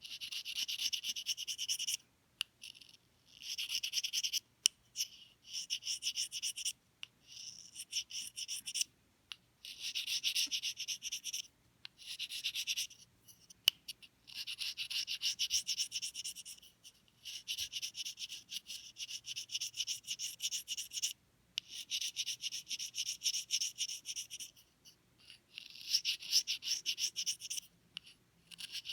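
Reed knife scraping the bark off the cane of an English horn reed blank. The scraping comes as quick, rasping strokes in runs of one to three seconds, with short pauses between the runs.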